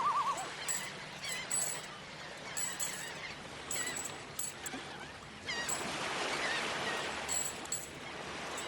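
Birds calling: repeated short, high chirps with a few wavering, trilling calls.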